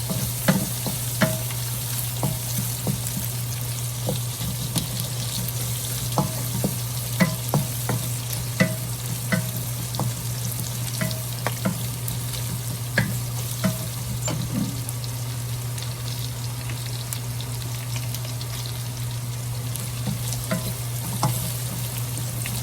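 Onions and garlic sizzling in rendered pork fat in a pan while being stirred, the spatula knocking and scraping against the pan at irregular moments, less often in the last third. A steady low hum runs underneath.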